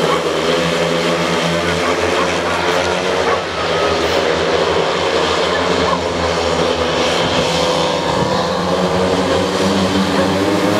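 Four speedway motorcycles racing flat out, their 500 cc single-cylinder methanol-fuelled engines running together as a loud, steady blend of engine notes.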